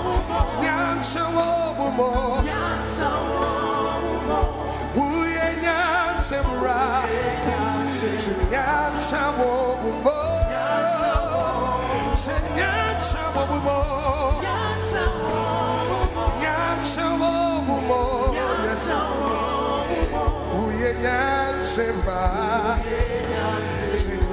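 Live gospel worship music: a band with steady bass and drums, cymbal strokes about every two seconds, and singing voices with a wavering vibrato carrying the melody.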